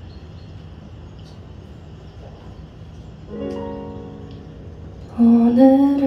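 Kurzweil SP2X stage piano playing a soft opening chord about three seconds in that rings and fades over a low steady hum; a woman's singing voice comes in near the end.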